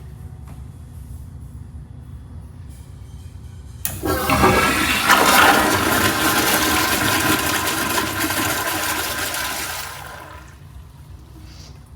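A restroom fixture flushing: water rushes in suddenly about four seconds in, runs loudly for about six seconds and then tapers off.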